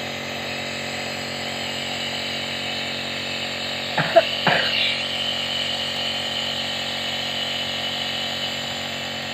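Nebulizer compressor running with a steady motor drone and hiss as it nebulizes medicine for a cough. Two short louder sounds break in about four seconds in.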